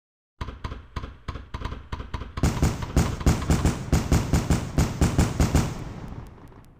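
Fireworks going off: a quick string of pops and crackles starts about half a second in. About two and a half seconds in it turns into louder bangs, about four a second, which die away near the end.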